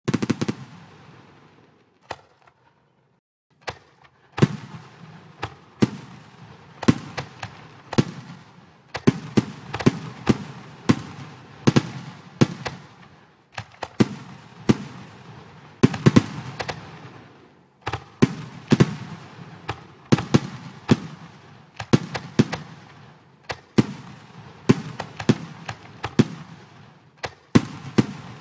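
Simulated fireworks from a computer fireworks program: shells bursting in sharp bangs with crackling tails. After one burst at the start and a sparse few seconds, the bangs come thick and fast, one to three a second.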